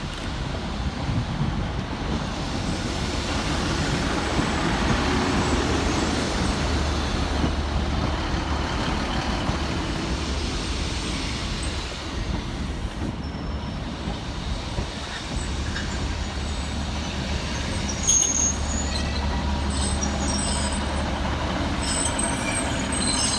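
Northern Class 150 and Class 156 diesel multiple units running into the platform, with diesel engines humming and wheels and brakes noisy on the rails. Brief high squeals sound near the end.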